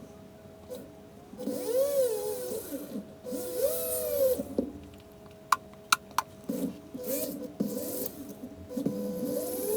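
Vevor 780W flex shaft grinder running, its rotary bit cutting wood in several short passes, the motor pitch dipping and recovering with each pass. A few sharp clicks come in the middle.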